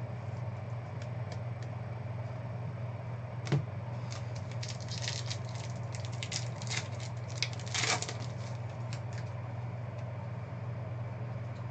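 A foil trading card pack wrapper crinkling and crackling as it is handled and torn open: a sharp snap about three seconds in, then about five seconds of dense crackling. A steady low hum runs underneath.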